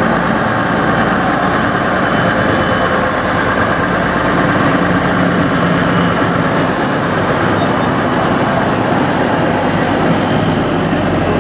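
Vintage heavy dump truck engine running steadily.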